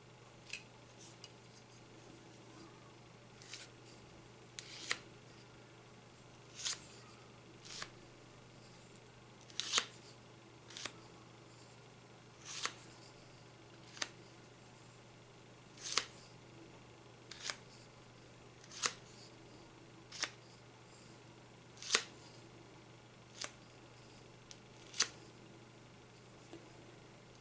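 Short, sharp clicks of a metal palette knife as wet gypsum plaster is scooped from a plate and laid on, coming irregularly every one to two seconds.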